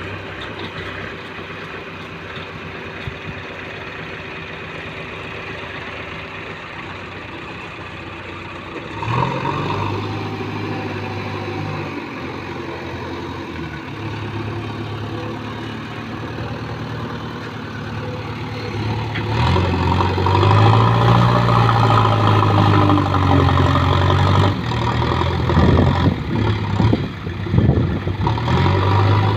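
JCB backhoe loader's diesel engine running, revving up under load about nine seconds in and again from about twenty seconds in as the front loader bucket works the soil. A few irregular knocks come near the end.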